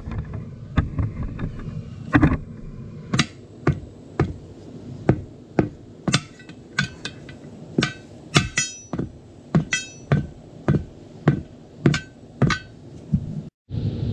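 Hand hammer striking a screwdriver wedged between a tire bead and a steel wheel rim, to force the dry, unlubricated bead off by hand. About two dozen sharp blows, irregular at one or two a second, each ringing briefly.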